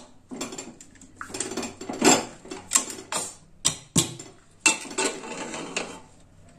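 Hawkins aluminium pressure cooker being opened: a series of sharp metal clanks and knocks as the inner-fitting lid is worked loose and knocked against the pot's rim.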